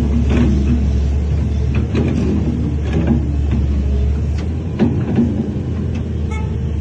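Heavy diesel earthmoving machine running steadily, with repeated irregular metallic clanks and knocks over the engine.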